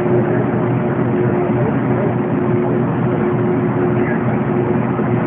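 A boat's engine running steadily: a constant hum over a steady rushing noise.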